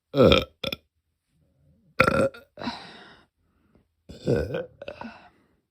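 A woman burping from a full, bloated stomach after a big meal: three loud burps about two seconds apart, each followed by a shorter one.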